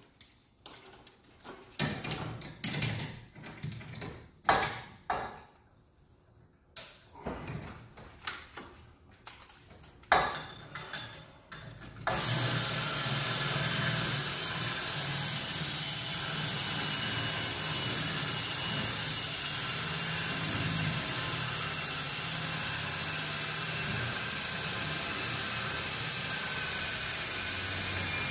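Scattered knocks and clicks from handling the winding tool on the garage door torsion spring. About twelve seconds in, a power drill driving the SureWinder starts abruptly and runs steadily to wind the torsion spring, with a high whine that sinks slightly in pitch.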